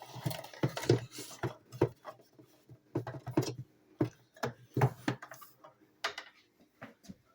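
Irregular plastic clicks and taps from a vintage Unisonic cordless phone being handled, about a dozen sharp clicks spread unevenly over several seconds and thinning out towards the end.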